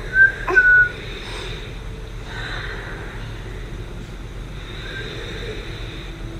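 Children blowing breath out through pursed lips onto a finger held at the mouth, as if blowing out a candle. In the first second the blow makes a short whistle-like tone; softer airy exhales follow about two and a half and five seconds in.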